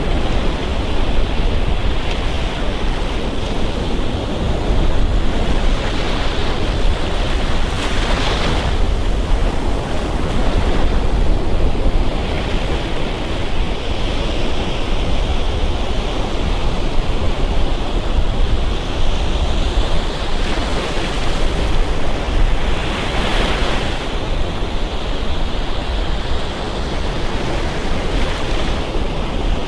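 Surf breaking and washing up on a sandy beach, a steady rush with waves swelling louder twice, about eight seconds in and again near the end, over a low rumble of wind on the microphone.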